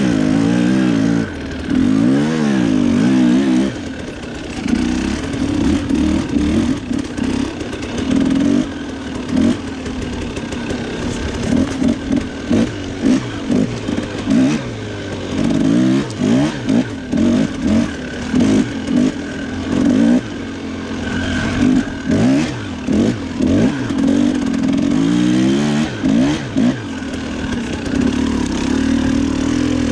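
Husqvarna TE300 two-stroke enduro dirt bike engine revving hard in repeated bursts, its pitch rising and falling as the throttle is opened and chopped. The bike is struggling through deep snow. In the second half the throttle is blipped many times in quick succession.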